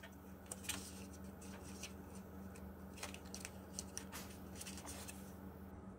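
Stiff white card packaging insert crackling and scraping as an earbud is pried out of it, with scattered small clicks over a steady low hum.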